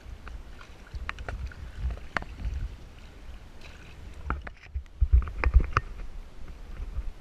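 Kayak paddling: irregular sharp knocks and splashes over a low wind rumble on the microphone, with the loudest knocks coming in a cluster about five seconds in.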